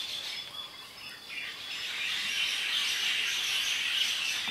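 Outdoor ambience of birds chirping, over a steady high hiss that swells about a second and a half in.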